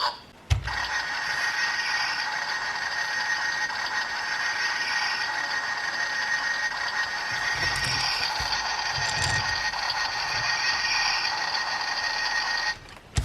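Toy's small built-in speaker playing the tank-mode sound effect of a Bandai DX King Joe Storage Custom: a steady mechanical rattling noise with a constant high tone. It starts with a click about half a second in and cuts off just before the end.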